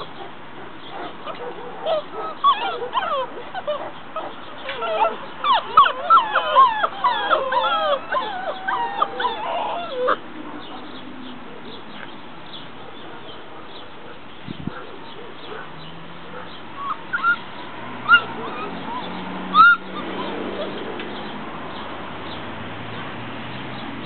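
Several mastiff puppies whining and yipping over one another, a dense run of high squeals for the first ten seconds or so, then only a few short squeaks later on.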